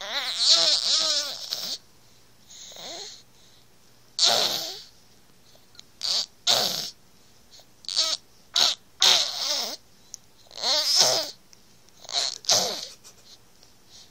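A seven-month-old baby making a string of about ten short babbling vocal noises with wavering pitch, separated by brief pauses: the noises the uploader calls 'poopy noises'.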